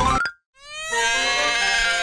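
A short rising sound effect, then a brief silence, then a baby's crying wail that rises and holds, over light background music.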